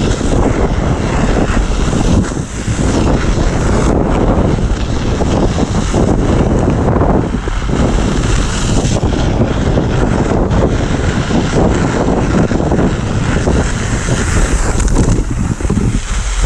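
Loud, steady rushing roar of wind buffeting the microphone, with a heavy low rumble and constant irregular crackle.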